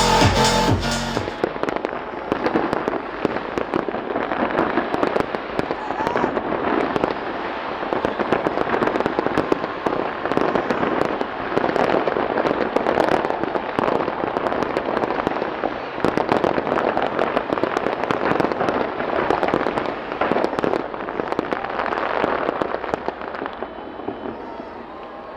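Dense, rapid crackling and popping, many sharp pops a second, running steadily for over twenty seconds. Dance music with a beat cuts off about a second in.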